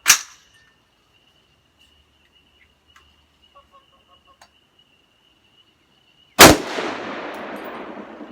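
A sharp crack right at the start, then about six and a half seconds in a single Ruger AR-15 rifle shot, the loudest sound, with a long rolling echo that slowly dies away.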